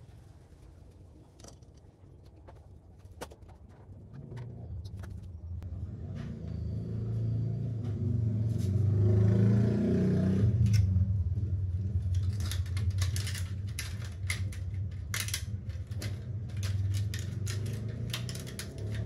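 Small metallic clicks and taps of hand tools and carburettor parts as a carburettor is refitted to a motorcycle engine, coming thick and fast in the second half. Under them a low rumble swells for several seconds and fades.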